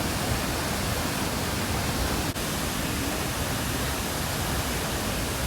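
Steady rushing roar of Athirappilly Falls, a large waterfall running high with monsoon water. There is a brief break a little over two seconds in.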